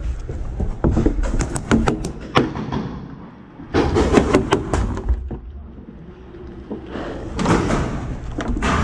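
Paintball fire in two quick volleys of sharp cracks, the second about four seconds in, with paintballs splatting against the barrier at the window.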